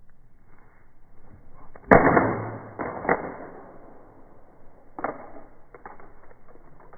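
An LG flip phone thrown against a hard surface: a loud impact about two seconds in, a second hit about a second later, and another knock near five seconds, with the phone staying intact.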